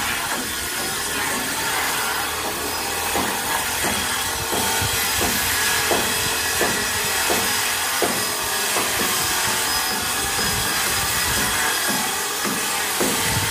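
Hand saw cutting through a wooden plank in steady back-and-forth strokes, about one and a half a second, over a constant hiss.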